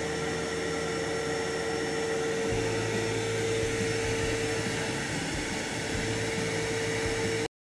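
Steady hum of running machinery, a motor or fan, with a steady whine through it; a deeper hum joins about two and a half seconds in, and the sound cuts off suddenly near the end.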